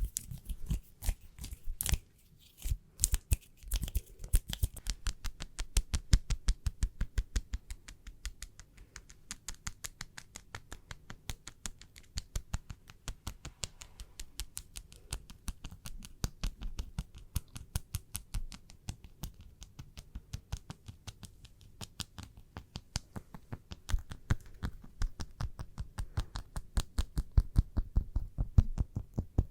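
Fingernails tapping rapidly, several light clicks a second in an uneven run, louder in some stretches than others.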